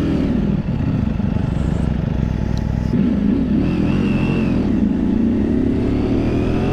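Ducati Panigale V4R V4 sportbike engine pulling away and accelerating through the low gears, its pitch rising, with a shift about three seconds in before it climbs again.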